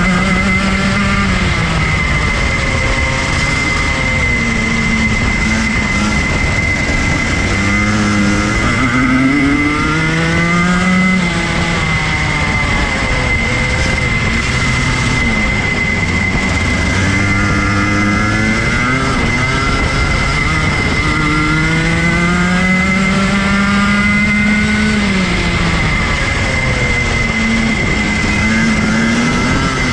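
Rotax Max Junior 125cc two-stroke kart engine heard onboard, its revs climbing on the straights and falling away into the corners, over and over. A steady high whine runs underneath.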